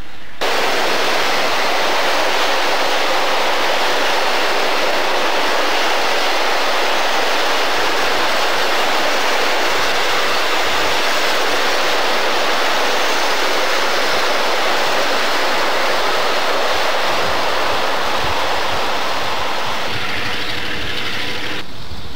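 Stainless-steel double-deck commuter coaches rolling past close by: a steady rush of wheel and rail noise, starting abruptly about half a second in and easing a little near the end.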